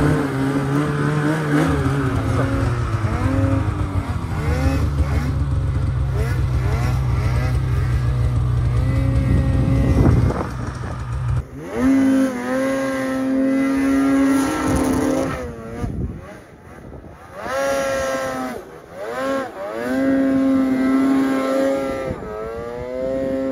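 Snowmobile engines working in deep powder. First a steady engine drone; then, about eleven seconds in, a sled revving up and down in repeated bursts as the rider throttles through the deep snow.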